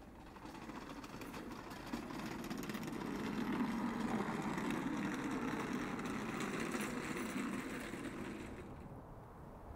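Wheeled mop bucket rolling and rattling over outdoor paving, growing louder to a peak about halfway through as it passes close, then fading away.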